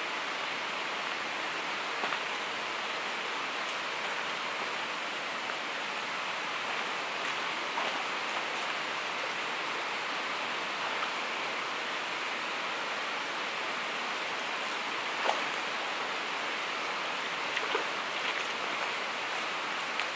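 Steady rush of flowing river water, with a few short ticks and small splashes in the last few seconds.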